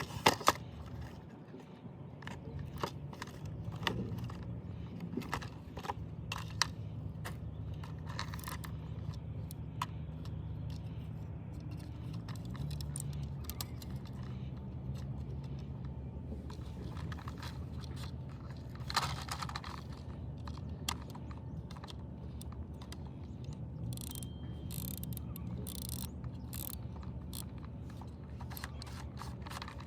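A small motor running with a steady low hum, with clicks and rattles of plastic parts over it, typical of a motorised toy vehicle being worked.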